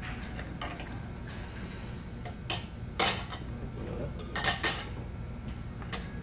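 A fork and dishes clinking and tapping on plates at a table: a few sharp clicks, the loudest about three seconds in, then a quick run of three around four and a half seconds.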